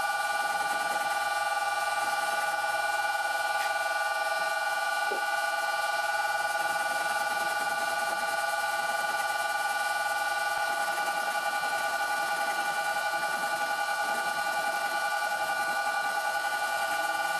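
Vintage Karger metal lathe running under a turning cut, a steady whine of several pitches held throughout as the tool bit peels chips off a workpiece supported by a tailstock center.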